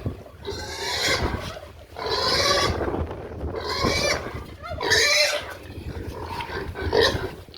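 Pigs squealing: a string of loud, harsh cries, each up to about a second long, following one another about a second apart.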